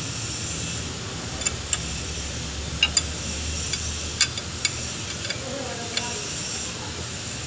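An engine running steadily, with sharp knocks or ticks heard at irregular moments over the running: the engine knock being diagnosed.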